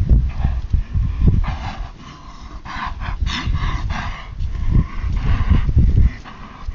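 Grey Quarter Horse stallion loping and turning in soft arena dirt: rhythmic hoofbeats and the horse's breathing in time with its stride, over a low, irregular rumble. The rumble eases off for a couple of seconds in the middle.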